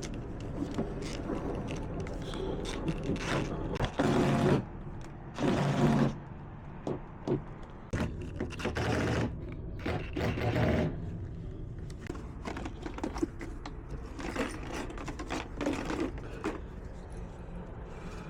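Cordless drill-driver running in short bursts on the screws of a uPVC door's lock and hinge fittings, two loud bursts about four and five and a half seconds in and shorter ones later, with scraping and clicks of metal parts being handled between them.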